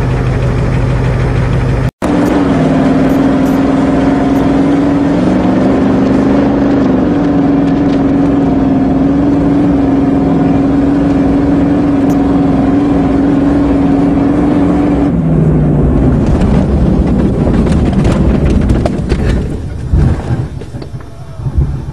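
Vehicle engine running hard under load, heard from inside a motorhome being pushed toward a jump, a steady drone that steps up once early on. About two-thirds in the drone falls away and the last few seconds are a jumble of rattles and heavy knocks.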